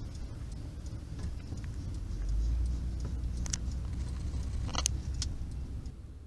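Autorack freight train rolling past, a steady low rumble with a few sharp clicks of wheels over the rail. The rumble swells in the middle and fades out at the end.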